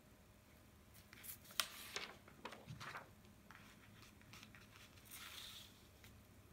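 Faint handling sounds on a desk: a few light clicks and small knocks, then, a second or so before the end, a short rustle like paper sliding.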